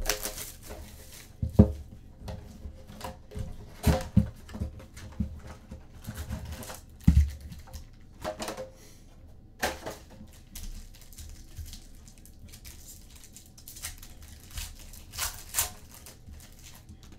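Trading-card packs being opened and the cards handled on a table: irregular sharp taps and knocks, with wrappers and cards rustling and crinkling between them.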